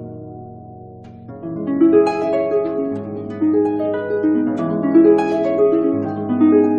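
Harp music: plucked notes ringing and fading over low bass notes. The playing is soft for the first second or so, then picks up again.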